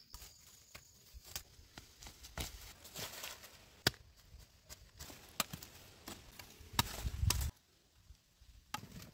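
Machete blade chopping into dry, stony soil while digging for earthworms: irregular sharp strikes about once a second, with scraping and dry-leaf rustle between them and a louder, longer scrape about seven seconds in.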